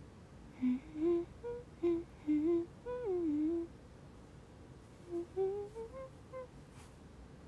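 A woman humming a tune in two short phrases with a pause between, the second phrase rising in pitch.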